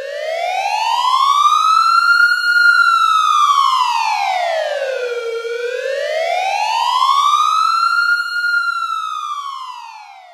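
Warning siren wailing slowly: its pitch rises, holds at the top, falls and rises again, about five and a half seconds per cycle, for two full rises before fading out near the end.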